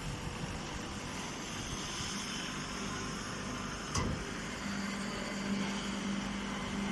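Round baler running on cardboard, a steady mechanical noise. There is a sharp knock about four seconds in, and a steady low hum sets in about a second later.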